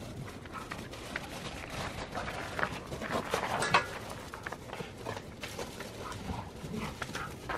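Paws of a Siberian husky and an Alaskan malamute running and scuffling in crusty snow as the dogs play: irregular crunching steps, with a louder scuffle a little past halfway.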